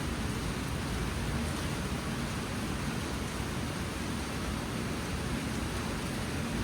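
Monsoon rain falling steadily, a dense even hiss with no single drops standing out.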